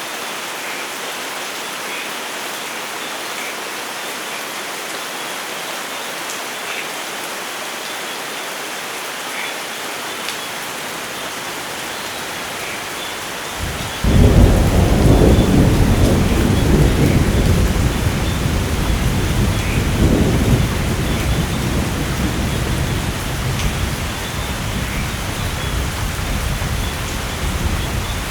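Steady rain falling, with a thunderclap breaking in suddenly about halfway through as a deep rumble that surges again a few seconds later and slowly dies away under the rain.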